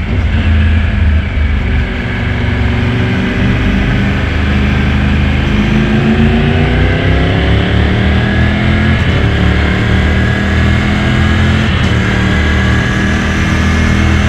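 Motorcycle engine heard while riding, pulling up through the revs about four seconds in, its pitch rising steadily for a few seconds before settling into a steady cruise, over a constant rush of road and wind noise.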